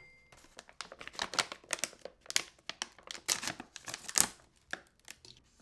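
Plastic packaging crinkling and rustling in short, irregular bursts with small clicks, as a padded rifle sling is unpacked and handled.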